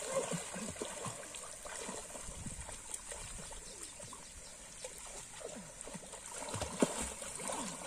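River water splashing and gurgling as swimmers move through it, in many small trickling splashes, with one sharper splash near the end.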